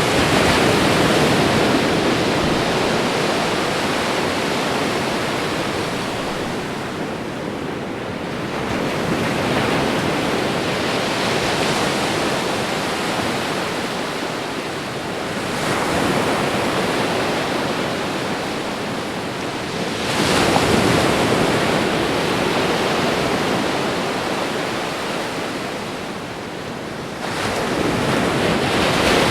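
Ocean waves washing onto a shore: a continuous rush of surf that surges every several seconds as a wave breaks, then eases off.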